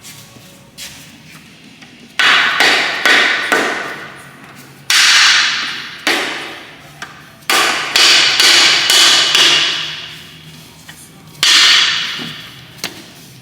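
Dead blow hammer striking the main bearing caps of a Cummins 6BT block, tapping them down into their seats: about a dozen sharp blows in uneven groups, each trailing off over about a second.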